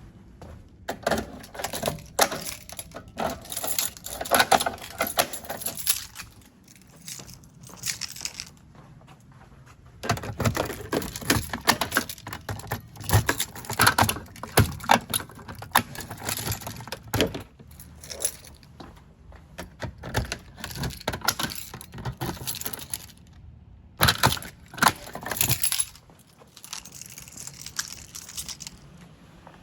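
A ring of keys jangling with irregular metal clicks and rattles, coming in bursts with short pauses between them.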